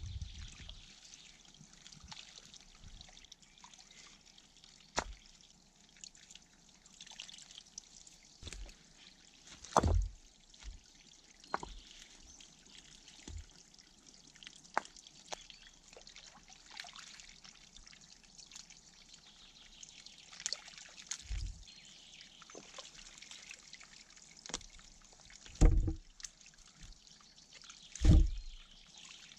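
Muddy water trickling and sloshing in a hand-dug water hole as mud and stones are scooped out by hand and pried loose with a wooden stick. Scattered knocks and dull thumps, the two loudest near the end.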